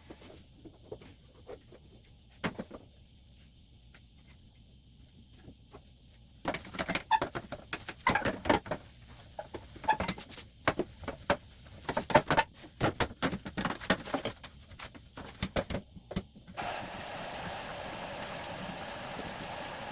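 Irregular clattering and knocking of household items being handled, busiest in the middle, then a tap turned on near the end and water running steadily.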